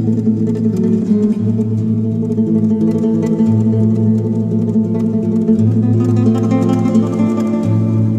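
Spanish guitar music: plucked melody notes over low bass notes that change every second or two.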